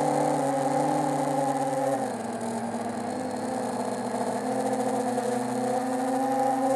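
Xing 2806.5 1300kv brushless motors and propellers of a 7-inch FPV quadcopter whining at steady throttle. The pitch drops and the sound eases off about two seconds in, then rises again near the end.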